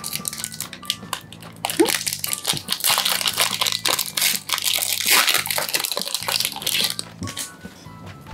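Foil wrapper of a Pokémon TCG booster pack crinkling and tearing as it is ripped open by hand, the crackle dying down about seven seconds in.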